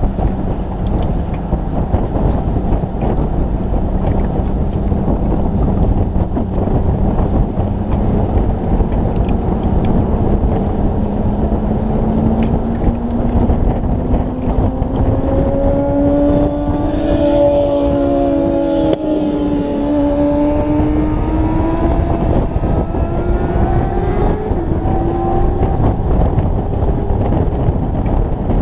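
Motorcycle riding at speed on a racetrack, with heavy wind rushing over the bike-mounted microphone; the engine note climbs slowly in pitch through the second half.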